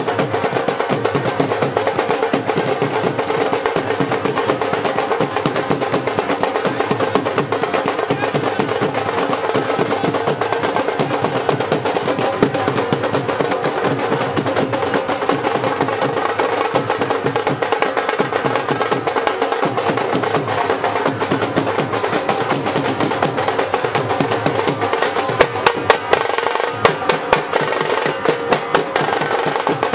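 Devotional music led by fast, continuous drumming over steady held tones, with a few sharper, louder drum strokes near the end.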